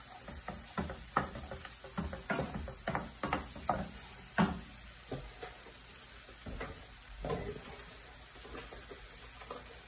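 Wooden spatula scraping and stirring a thick bacon-fat roux in a cast iron skillet, with the roux sizzling. The scrapes come in a quick run through the first few seconds, then only a few scattered ones.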